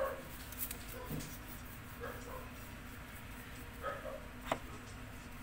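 A dog whimpering in four short, separate calls about a second apart, with one sharp click near the end.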